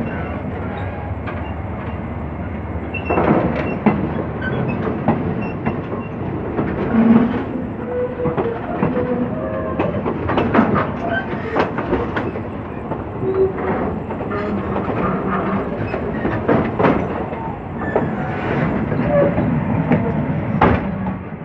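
Train rolling along the track with a steady rumble and wheels clicking over rail joints, clicks that come irregularly and often from about three seconds in.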